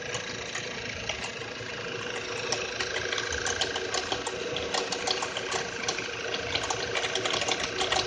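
Skoda Superb's 1.8 TSI (CDAB) four-cylinder petrol engine idling, with an irregular rapid ticking clatter over its steady hum, the ticks growing denser a few seconds in. This is the foreign knock from the right side of the engine bay that appears at cold idle after long parking in sub-zero temperatures.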